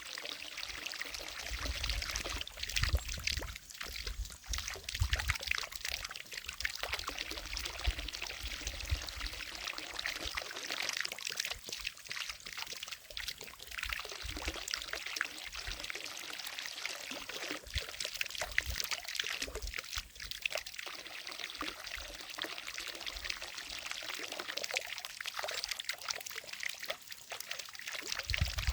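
Water from a fountain falling and splashing into a pond: a steady pouring and trickling, with occasional low rumbles.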